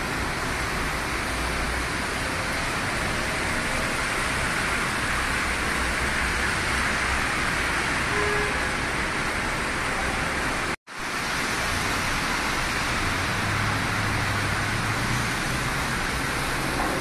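Heavy rain on a moving car's roof and windscreen, mixed with wet tyre hiss from the road, heard from inside the cabin as a steady loud wash. It cuts out for a split second about two-thirds of the way through.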